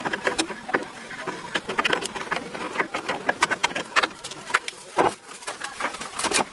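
Rapid, irregular clicking and tapping, several clicks a second, with a louder knock about five seconds in.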